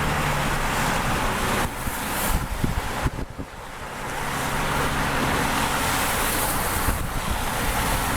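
Wind buffeting and rushing over the microphone, with irregular low thumps. A low steady hum, like a vehicle's engine, stops about one and a half seconds in.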